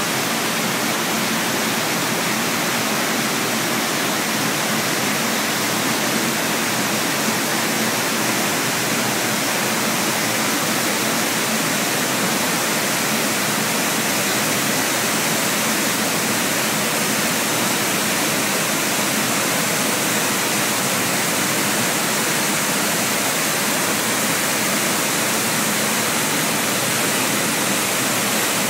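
Waterfall: white water pouring over and between rocks in a steady, unbroken rush of noise.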